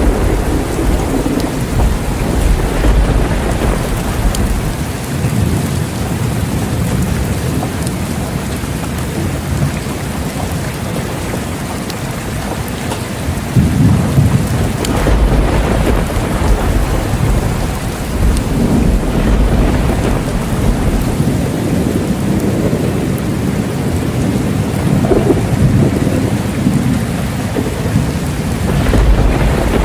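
Steady heavy rain falling, with rolls of thunder rumbling low underneath, one swelling about halfway through and more near the end.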